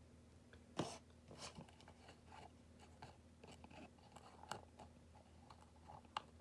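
Faint scattered clicks and light taps of a small resin scale model being handled, the sharpest about a second in, over a low steady room hum.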